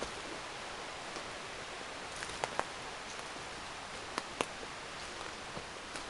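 Footsteps crackling through dry fallen leaves and twigs over a steady hiss, with a few sharp snaps: two quick pairs around the middle.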